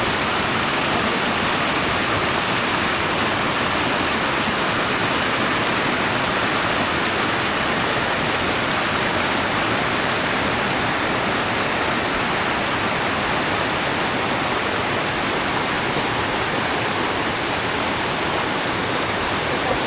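Fast, shallow mountain stream rushing steadily over mossy rocks and small cascades: the outflow of a karst spring.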